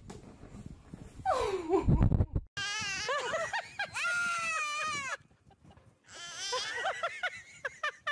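Young goat bleating: two long, wavering bleats about three seconds in, then a shorter call near the end. Before them comes a short falling cry and a loud low rumble, the loudest moment.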